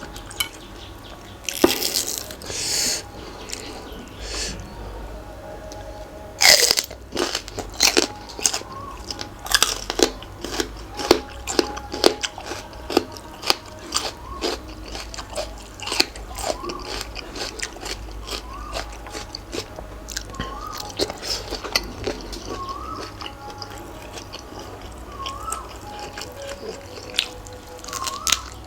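A person eating spicy pounded seafood salad with raw vegetables, with repeated crunchy bites and chewing. A faint short rising chirp repeats every second or two in the background.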